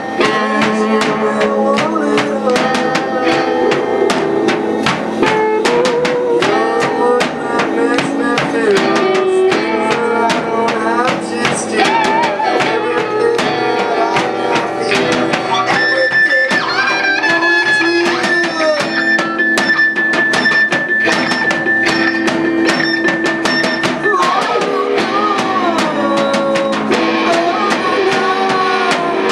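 Live rock band playing loudly: electric guitar, keyboard and drum kit, with a singer on a microphone. A single high note is held for several seconds around the middle.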